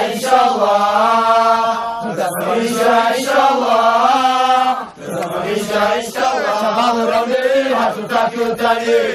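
Men's voices chanting a rallying song in long, drawn-out melodic lines, with a short break about five seconds in.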